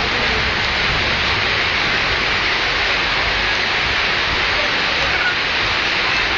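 Steady rain falling, an even hiss with no breaks or distinct drops.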